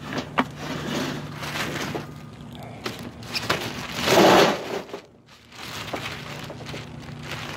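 Clear plastic bag holding golf balls crinkling and rustling as it is handled and opened, loudest about four seconds in.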